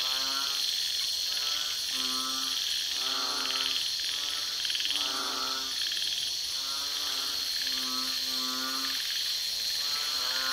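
Night nature ambience: frogs croaking in short calls repeated about once a second, over a steady high-pitched insect drone.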